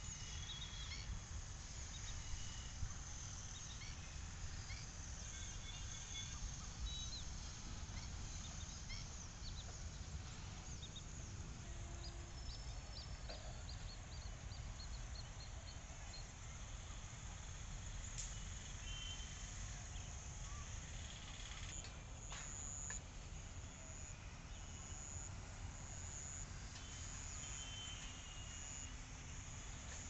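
Lakeside outdoor ambience: a steady low rumble with scattered short bird calls, including a quick run of repeated high notes in the middle. A high, on-and-off buzzing tone comes in during the second half.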